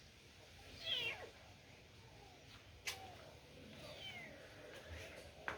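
Kitten mewing: a high meow falling in pitch about a second in and a fainter one around four seconds, with a couple of light clicks between.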